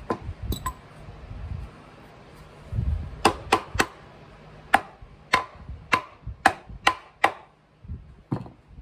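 A hammer tapping about ten times, sharp knocks with a short ring, unevenly spaced and some in quick pairs, after a few low handling bumps.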